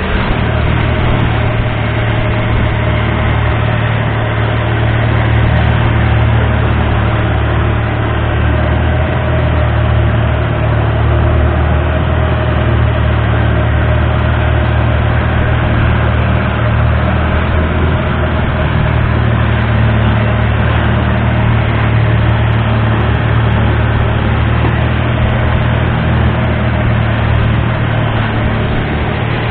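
Thai longtail boat's big diesel engine running steadily at speed, a loud low drone, with water rushing past the hull.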